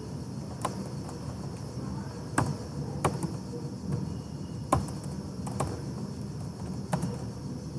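About six separate computer keyboard key clicks at irregular spacing, over a steady low background hum.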